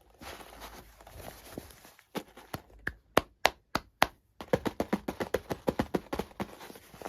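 Sharp clicks and taps from hands handling a toy and its packaging during an unboxing: a few loud separate clicks, then a quick run of light taps, about eight a second, for almost two seconds.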